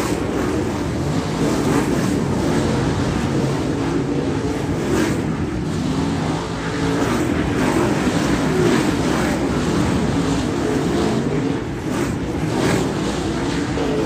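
A field of dirt late model race cars with V8 engines running hard on a dirt oval, several engines blending in a continuous loud drone whose pitch rises and falls as the cars pass and slide through the turn.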